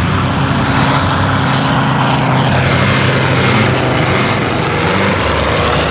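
Engine and propeller of a large radio-controlled scale PZL-104 Wilga model plane running steadily as it flies past low overhead, the pitch falling about two seconds in as it goes by.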